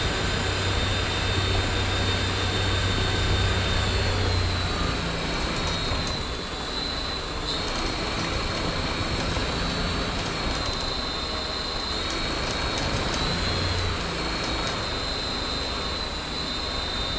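Hacker A60-16L brushless motor driving a six-blade homemade propeller at full run: a steady high whine over a broad rush of prop wash. The propeller is weighted out of balance with a bolt, shaking the mount; a low hum is strong for the first four seconds or so and returns briefly near the end.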